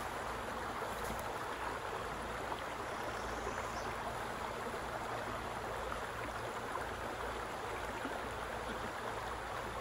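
Small shallow creek running over rocky riffles: a steady rush of flowing water.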